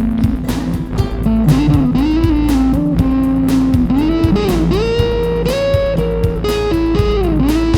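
Instrumental rock music: an electric guitar plays a lead line with string bends over drums and bass guitar.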